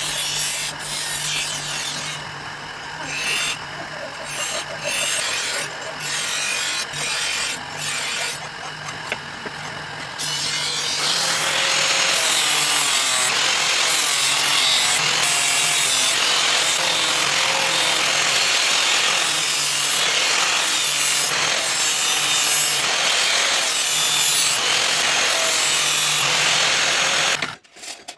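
A power grinder running against the knife: stop-start passes for the first ten seconds or so, then one long steady pass with the motor hum underneath. It cuts off suddenly near the end.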